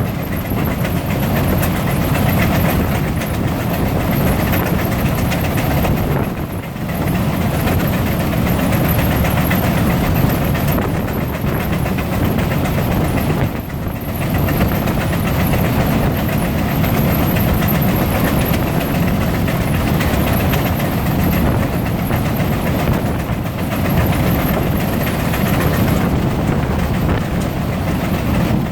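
Three Frick steam traction engines (9½×10, 8½×10 and 9×10 inch) working under belt load on two fans and a power eater, giving a loud, steady, dense din that dips briefly twice.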